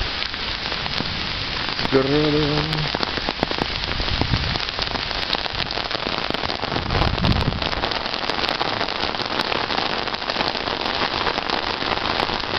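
Heavy rain mixed with hail coming down on paved paths and gravel: a dense, steady hiss dotted with many sharp ticks.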